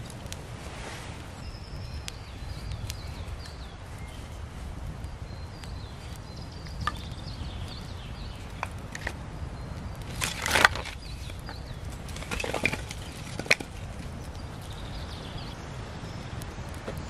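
Small twig fire crackling, with a few sharp wooden knocks and clacks as split wood is laid on it, the loudest cluster about ten and a half seconds in and another near thirteen seconds; a steady low rumble underneath.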